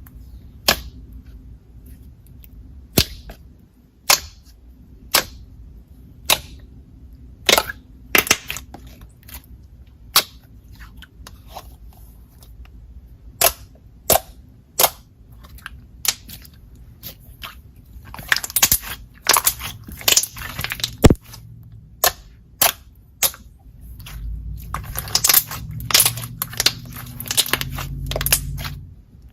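Thick, glossy slime being pressed and played with, letting out sharp popping clicks as air pockets burst, about one a second at first, then in denser crackling runs about two-thirds through and near the end.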